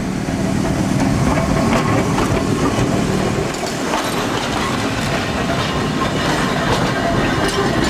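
Manx Electric Railway electric tram and trailer rolling past at close range, a steady rumble with scattered clicks and knocks from the wheels on the track.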